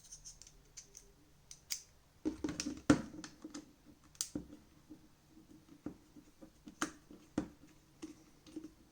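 Scattered light clicks and taps of a small screwdriver and hands working the screws out of a plastic TV remote's casing, irregular and sharp, with a few louder clicks.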